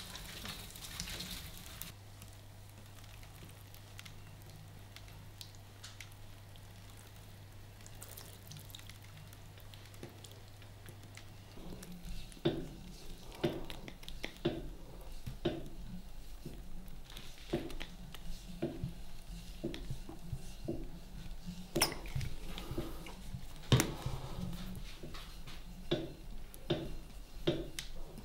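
A low steady hum with faint scraping at first. From about twelve seconds in, plastic squeeze bottles squirt sauce, with short wet squelches and sputters about once or twice a second.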